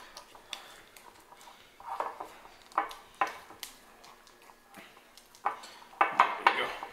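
A spoon stirring and scraping thick whey-protein paste in a bowl, with irregular clinks against the bowl's side. The clinks are sparse at first and come quicker near the end.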